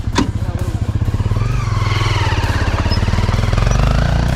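Motorcycle engine running steadily, growing a little louder in the second half, with a single sharp click just after the start.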